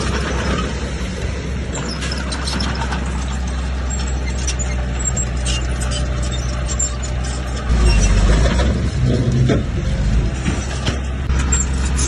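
Diesel engine of heavy earthmoving machinery running steadily, with metallic clanking and squeaks over it. The engine grows louder about eight seconds in, as if working under load.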